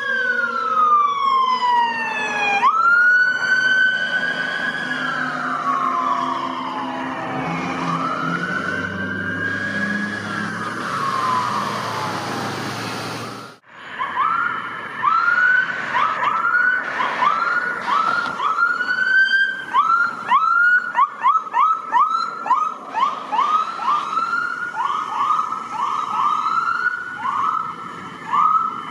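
Emergency vehicle sirens passing. In the first half a slow electronic wail sweeps up and down, dropping in pitch as the vehicles go by. After a sudden cut about halfway through, a police siren runs on a fast yelp of short rising chirps, two to three a second.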